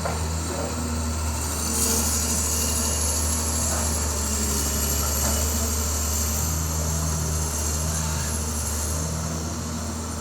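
Amphibious excavator's diesel engine running steadily with a low drone, under a thin high whine that slowly rises and falls; a brief louder rush about two seconds in.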